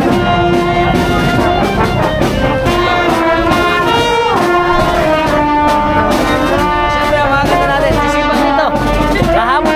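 Brass band playing a tune, trumpets and trombones in sustained notes over a steady beat.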